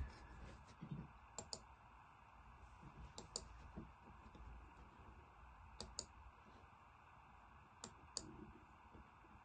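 Faint clicks of a computer mouse: a few separate double clicks a couple of seconds apart, over quiet room tone.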